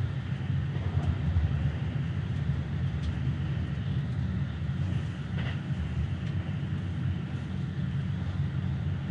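Keikyu 1000-series electric train running along the track, heard from inside the driver's cab as a steady low rumble of wheels and running gear.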